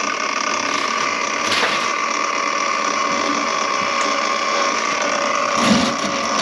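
Drain-cleaning machine spinning its cable inside a clogged kitchen sink drain line, a steady mechanical whir with a constant whine and rattle.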